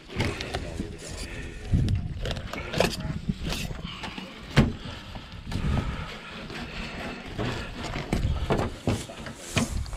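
Goldband snapper being filleted on a steel cleaning table: a knife cutting, with irregular sharp knocks of the blade and fish against the metal, the loudest about four and a half seconds in.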